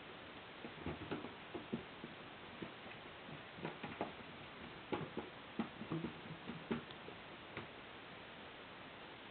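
Irregular light taps and knocks of a cardboard beer case being batted and jostled by a cat's paws, a few a second, stopping a little before the end.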